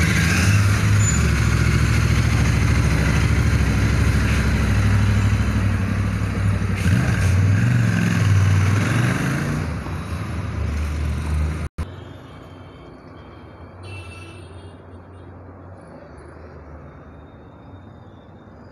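Royal Enfield 650 parallel-twin engine running, its note shifting about halfway through. About two-thirds of the way in it cuts off abruptly to much quieter street traffic noise.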